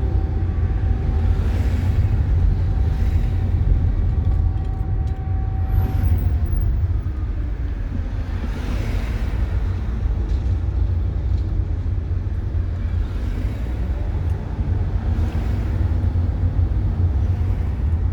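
Distant air raid siren: a steady wailing tone that sinks away about six seconds in and rises back near the end. It sounds over a heavy, steady low outdoor rumble.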